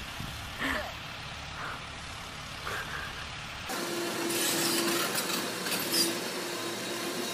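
Low rumble with a few faint voices, then after a sudden change a Doosan hydraulic crawler excavator working at a demolition. Its engine and hydraulics give a steady hum that breaks off and comes back, over cracking and crunching as concrete and brick are broken.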